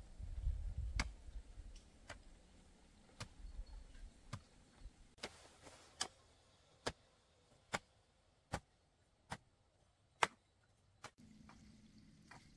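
Evenly spaced sharp clicks or knocks, about one a second, with a low rumble at the start.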